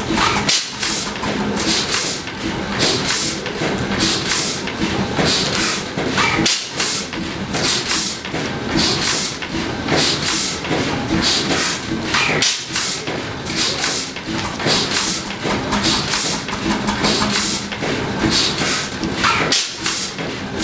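Large old stationary engine running: a fast, even, rhythmic hiss and clatter, with a brief lull about every six seconds.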